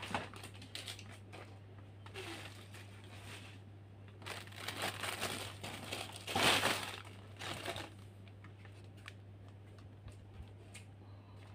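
Clear plastic wrapping and cloth being handled, crinkling and rustling in bursts that are loudest a little past the middle, over a steady low hum.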